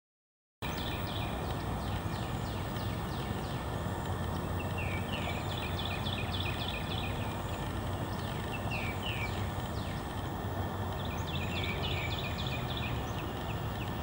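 Bayou wildlife ambience: an animal calling in quick runs of short falling chirps over steady background noise and a low hum. It starts abruptly about half a second in.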